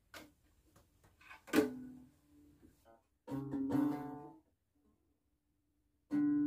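Acoustic guitar being grabbed and knocked, with a loud thump that sets the strings ringing about one and a half seconds in, then a single strummed chord. Near the end, plucked-string music starts.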